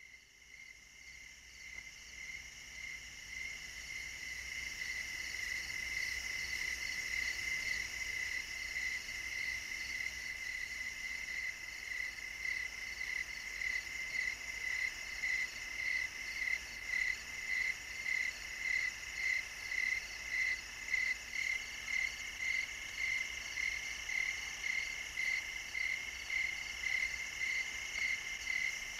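Insects chirping in a steady, shrill chorus that pulses about twice a second, fading in over the first few seconds.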